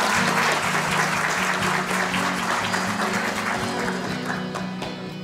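Audience applauding over background music. The clapping thins out and fades near the end.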